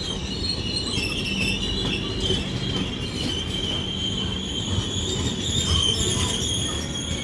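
Indian Railways LHB passenger coaches rolling slowly along a platform, their wheels giving a steady high-pitched squeal over a low rumble of the bogies.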